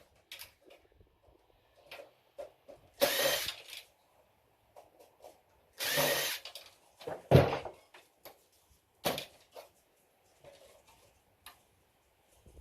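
A cordless drill-driver runs in several short bursts, backing screws out of an old computer's slot cards, with clicks and knocks of the parts being handled in between.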